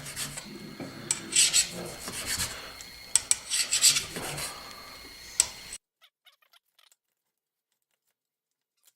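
A knife sawing through a cooked steak: about four bouts of rasping, scraping strokes that cut off suddenly about six seconds in.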